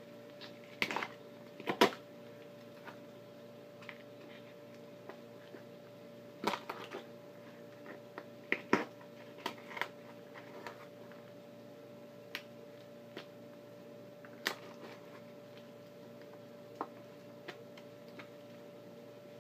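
Raw chicken being pulled apart by hand on a wooden cutting board: scattered sharp clicks and knocks of joints and meat against the board, the loudest about two seconds in and more around six to ten seconds, over a steady faint hum.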